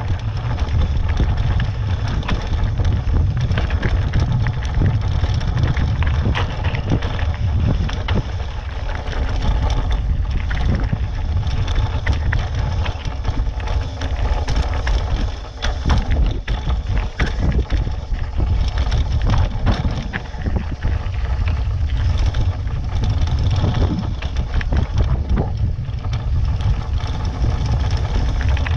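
Mountain bike riding over a rocky gravel trail: the tyres crunch over loose stones and the bike rattles with many sharp clicks and knocks, under a heavy, steady rumble of wind on the bike-mounted camera's microphone.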